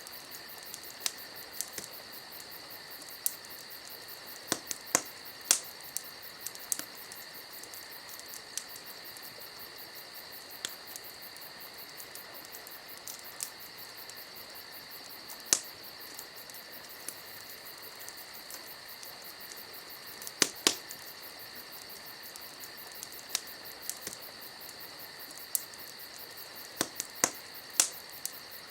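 Campfire crackling, with irregular sharp pops, the loudest about halfway through and several near the end, over a steady high chirping of insects.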